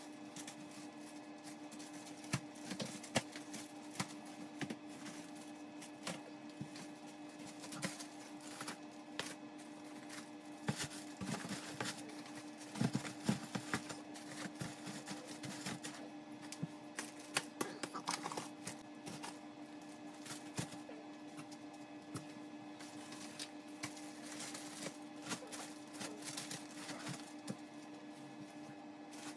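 Irregular clicks, taps and crinkles of plastic-wrapped products being handled and set into a cardboard shipping box, busiest in the middle, over a steady hum.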